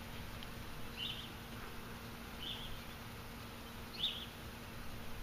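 Quiet outdoor background with a short high chirp repeating about every one and a half seconds, three times, over a faint steady hum.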